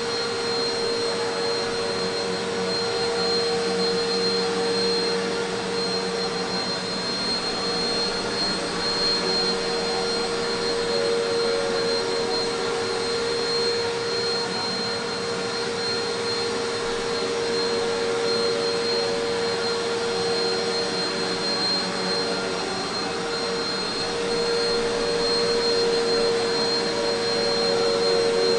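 Eureka PowerSpeed Pro Swivel Plus (NEU192A) bagless upright vacuum cleaner running steadily: a rush of air with a steady mid-pitched hum and a thin high whistle over it.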